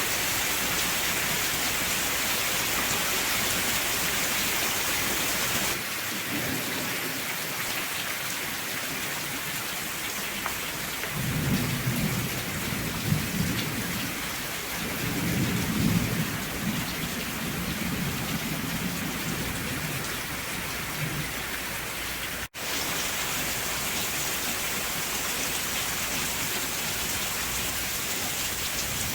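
Steady heavy rain with rolling thunder rumbling low from about 11 to 21 seconds in. The rain sound shifts abruptly about six seconds in and drops out for an instant about two-thirds of the way through, where the recording is spliced.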